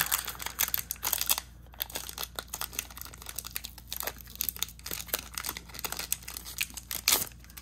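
Foil wrapper of a Pokémon trading card booster pack being torn open and pulled apart: dense, irregular crinkling and crackling, with a couple of louder rips about a second and a half in and near the end.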